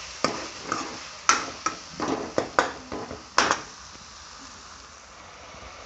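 A spoon clinking and scraping against a pan while stirring masala and whole garlic cloves as they fry, about eight sharp knocks over three seconds, then only the faint steady sizzle of the frying.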